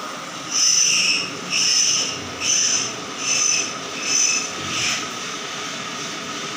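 Handheld butane gas torch on a canister being lit: the gas hisses in about six pulses roughly a second apart, then settles into a steady flame hiss about five seconds in.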